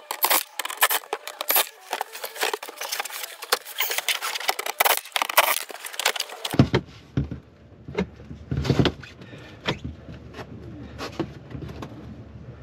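A Ryobi cordless driver backing out T20 Torx screws from a plastic floor panel, running in short bursts. Dense clicking and rattling fill the first half, then sparser knocks and brief runs of the tool.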